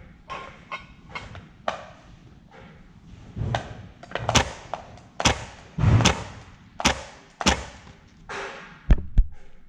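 Salco Rapid 106 electric stapler firing again and again under its foot pedal, a sharp clack with each stroke: about seven strokes in the second half, at irregular intervals. Softer knocks and rustles come in between.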